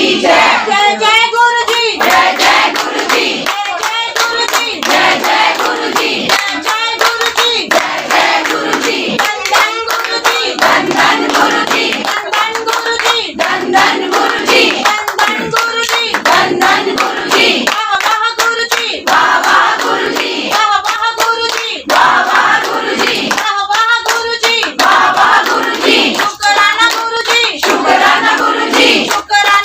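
A group of voices singing a devotional bhajan, with hands clapping along throughout.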